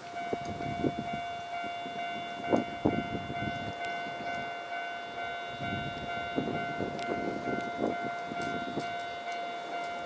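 Japanese railway level-crossing alarm switching on suddenly and ringing steadily with its electronic bell tone, warning that a train is approaching and the barrier arms are about to come down.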